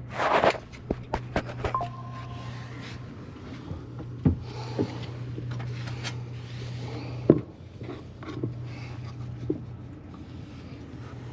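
Sharp metallic clicks and taps from hand tools and pipe fittings during gas-line work. A quick run of them comes in the first two seconds, one briefly ringing, and single knocks follow about four, seven and nine seconds in, over a steady low hum.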